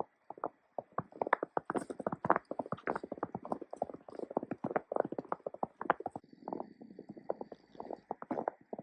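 Footsteps crunching on fresh snow as someone walks at a steady pace, a quick run of short crunches, several a second.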